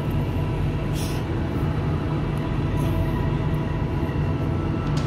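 Steady low drone of an idling truck engine, with a couple of brief scrapes of pliers working at a nail stuck in the tire tread.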